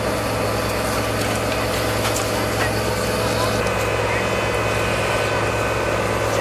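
Fire truck engine idling at the scene, a steady low hum, with voices in the background.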